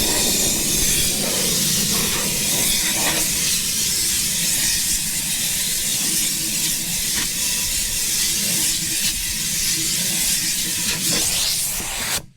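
Compressed-air blow gun blasting a steady hiss into the inside of a tire, clearing out rubber dust and crumbs left from buffing the liner for a patch. The air cuts off suddenly just before the end.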